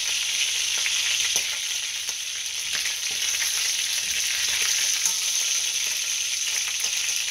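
Skin-on chicken thighs sizzling in butter in a cast-iron skillet, a steady frying hiss. A few light clicks come through as tongs lift the pieces out of the pan.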